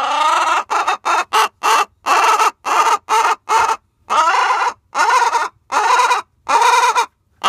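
A hen squawking loudly and over and over, more than a dozen harsh calls: a long rising call to start, a quick run of short ones, then longer calls about every half second. It is the loud protest of a hen that needs to lay while the nest boxes are taken.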